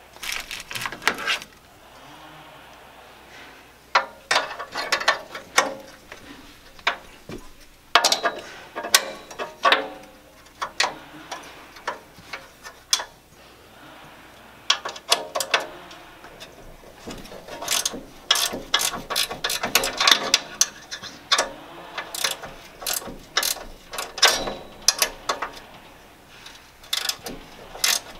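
Ratcheting hand tool clicking in short runs of rapid clicks with pauses between, as the new burner tubes of a gas grill are fastened in place.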